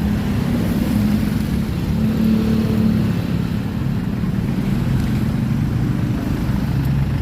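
Street traffic: motor vehicle engines running at low speed, a steady low hum whose pitch shifts slightly.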